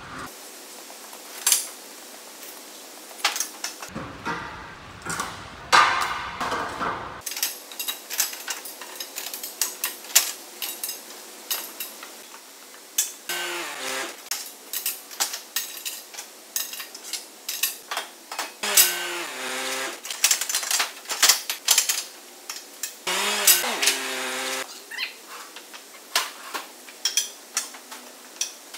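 Galvanised steel tubes clattering and knocking against each other and against a steel crate as they are handled and lifted out. Three times a short squeal drops in pitch as metal slides on metal.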